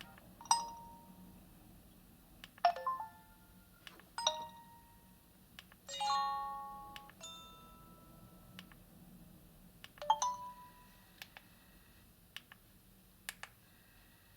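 A Nokia 6300 4G's speaker plays six short chiming tones, each with a ringing tail, a few seconds apart, as its alert tones are gone through one after another. Three faint clicks follow near the end.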